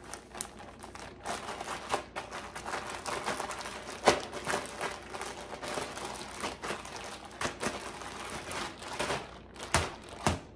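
Plastic zip-top storage bag crinkling and squishing as meatloaf mixture is kneaded inside it by hand. A single knock comes about four seconds in and two sharp knocks come near the end.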